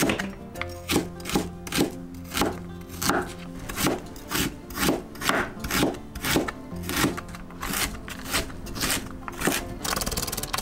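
Chef's knife chopping peeled ginger on a cutting board, sharp cuts about twice a second, over background music.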